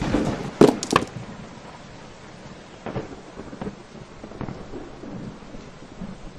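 Three loud thuds in quick succession in the first second, followed by fainter scattered knocks and rustling.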